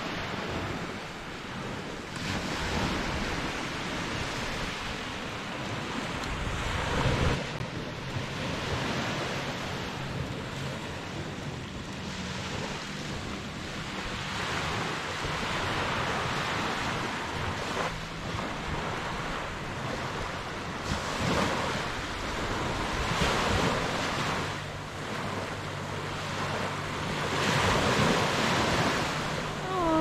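Small surf washing onto the beach, rising and falling every few seconds, with wind buffeting the microphone.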